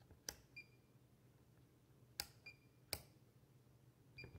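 A Fluke 279 FC multimeter being worked by hand: three sharp clicks from its rotary selector dial and buttons, and the meter's beeper giving three short high beeps, each beep coming a moment after a press or turn.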